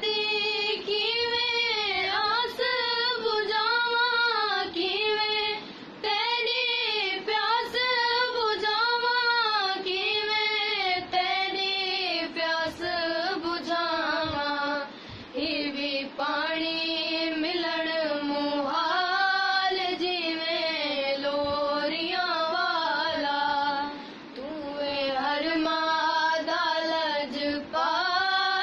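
A young female voice singing a noha, a Muharram lament, in long drawn-out phrases that rise and fall, with short breaks for breath.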